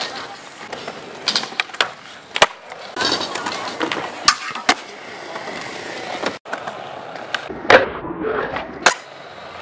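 Skateboard rolling on concrete, with sharp clacks of the board popping, hitting a skatepark ledge and slapping down on landings, and a stretch of the board sliding along the ledge. A short break in the sound a little past the middle.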